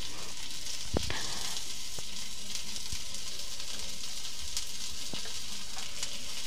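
Vegetables and chili sauce sizzling steadily in hot oil in a steel kadhai, being sautéed. A few faint clicks sound over the sizzle.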